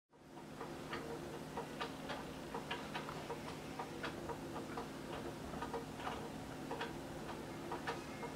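Fisher-Price Open Top Take-Along baby swing running: a steady motor hum with sharp clicks about twice a second as it swings.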